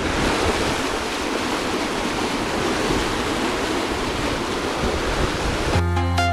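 Fast river water rushing and churning through open rapids between shelves of ice. Electronic music with a heavy bass line comes in near the end.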